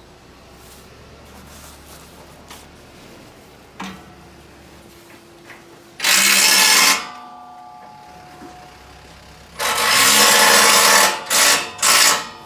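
Compressed-air blow gun hissing in bursts: one of about a second, a longer one of about a second and a half, then two quick blips.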